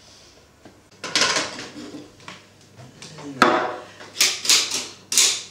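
An apple being thrown at a bowl, knocking and clattering against it several times. There is one sharp knock about three and a half seconds in, and a quicker run of knocks near the end.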